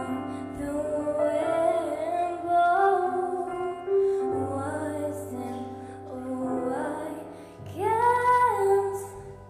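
A young woman singing a slow song into a handheld microphone, holding and bending long notes in separate phrases, over a soft sustained instrumental accompaniment. The last phrase fades away near the end.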